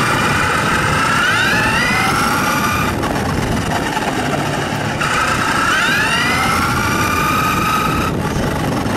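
Radio-controlled car's motor whining up in pitch as it speeds up, holding, then cutting off sharply. The same run-up comes twice, about five seconds apart.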